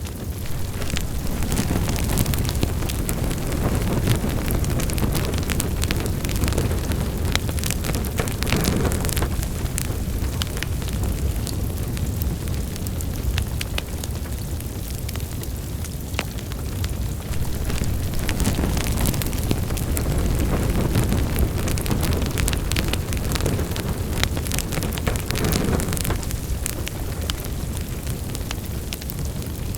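Wood fire burning in a fireplace, crackling with many irregular sharp pops over the low, steady rumble of the flames.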